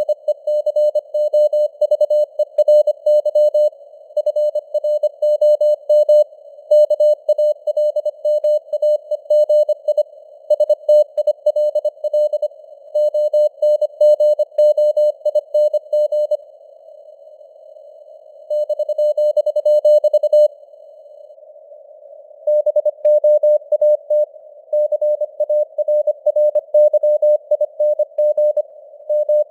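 Morse code (CW) at 25 words per minute: a single mid-pitched tone keyed rapidly on and off over a band of hissing simulated radio noise. Past the middle the keying stops for about two seconds, leaving only the hiss, then comes one steady tone of about two seconds, then another two seconds of hiss before the keying resumes.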